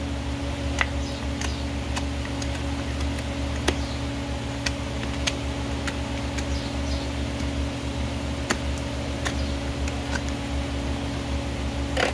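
Hoof knife paring flaky sole horn from a horse's hoof in short strokes, each a crisp scrape, roughly one every second, over a steady background hum. A louder cluster of strokes comes near the end.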